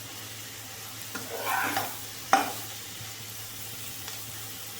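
Sliced onions frying in oil in a pan with a steady soft sizzle. Midway there is a brief stirring scrape through the onions, followed by one sharp clack against the pan.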